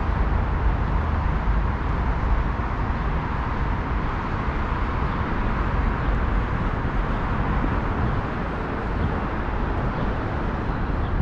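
Steady traffic noise from the elevated Gardiner Expressway overhead and nearby streets: an unbroken low rumble with no single vehicle standing out.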